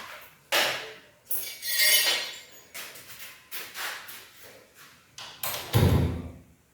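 Hand work on a wooden door: sharp knocks and clatters of tools and wood, a longer rasping scrape about a second and a half in, and a louder, dull thump near the end.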